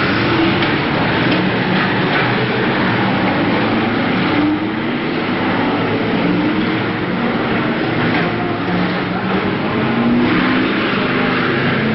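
Several BriSCA F1 stock cars racing round the track, their engines running loud and steady, with overlapping engine notes rising and falling as the cars lap.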